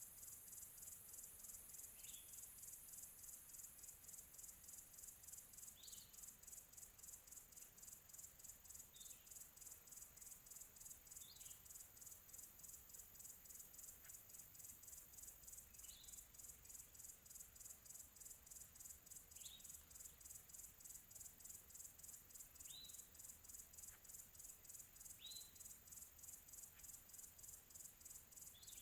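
Faint chorus of crickets: a steady, rapidly pulsing high trill. Over it a bird gives a single short chirp every two to four seconds, about nine in all.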